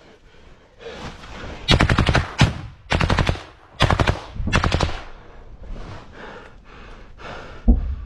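Automatic gunfire at close range: about five short bursts of rapid shots in three seconds. It is followed by fainter pulsing sounds and a single heavy thud near the end.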